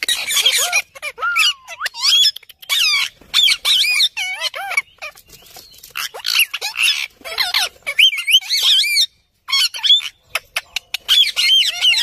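A group of rose-ringed (Indian ringneck) parakeets squawking and chattering: a dense run of short, loud calls that bend up and down in pitch, with one brief pause a little past the middle.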